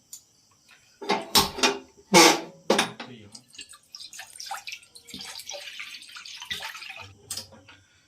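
A few knocks of a metal pan being handled, then water pouring steadily into the kadai for a few seconds.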